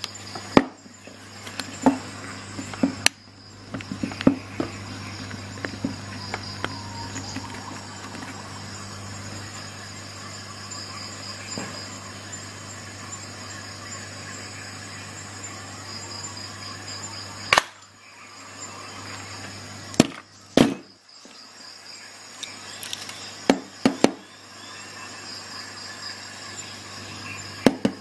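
Parkside PHET 15 B1 electric stapler-nailer giving about ten sharp clacks at irregular intervals as it is handled and fired, the loudest about two-thirds of the way through, over a steady low electrical hum and a faint high whine.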